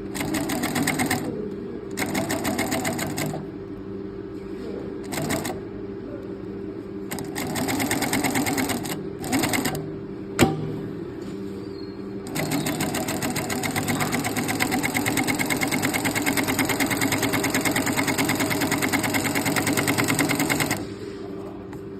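Four-needle industrial lockstitch sewing machine stitching in several short bursts, then in one long continuous run of about eight seconds, over the steady hum of its motor. A single sharp click sounds about ten seconds in.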